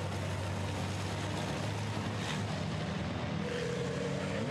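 Racing trucks' diesel engines running steadily on the circuit, a low even engine note, with a higher note rising slightly near the end.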